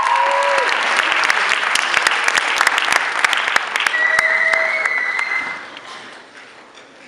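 Audience applauding, with whoops and cheers over the clapping; the applause dies away about five and a half seconds in.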